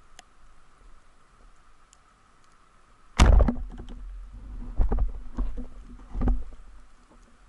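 Band-powered speargun fired underwater about three seconds in: a sudden loud thunk as the shaft is released and strikes into a rock hole. Then several more knocks as the speared shaft knocks against the rock.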